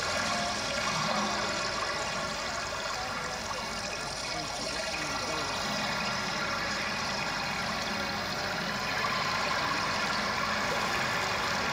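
Murmur of an outdoor crowd of spectators, many voices blending into a steady haze of noise.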